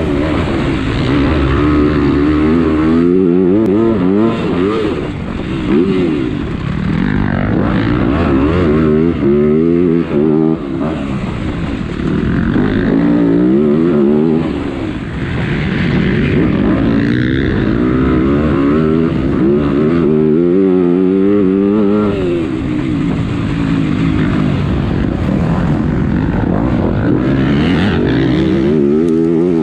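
Onboard sound of a motocross bike's engine at race pace, its pitch climbing and dropping again and again as the rider accelerates, shifts and rolls off between the corners and jumps.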